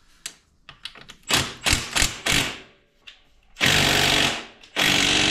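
Cordless impact wrench hammering in two bursts of about a second each, loosening the engine mount bolts on a quad's frame, after a few short knocks.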